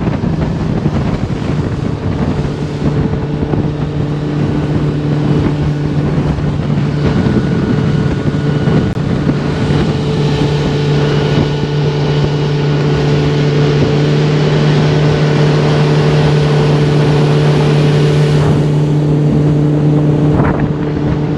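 75 hp four-stroke Mercury outboard running at a steady speed, driving an aluminium bass boat across open water, with wind buffeting the microphone and water rushing along the hull.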